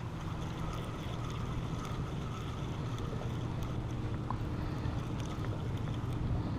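Steady low motor drone with wind noise on the microphone, and a few faint ticks.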